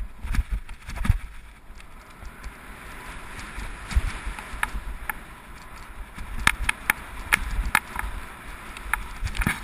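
Mountain bike descending a dirt forest trail, heard through a handlebar-mounted action camera: tyres rumbling over dirt and gravel with sharp rattling clicks and knocks from the bike over rough ground, coming thick and fast in the last few seconds.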